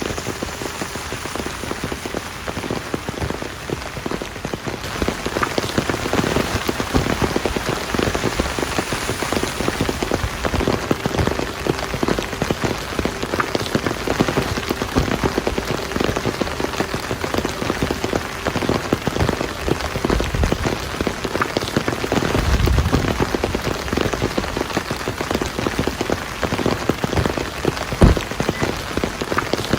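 Heavy rain falling on a hard surface, a dense, steady patter of drops, with one louder knock near the end.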